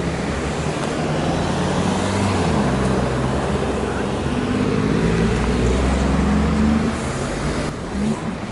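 City street traffic: car engines running and tyre noise as cars drive through the intersection close by, with engine tones rising and falling and a car passing loudest about five to seven seconds in.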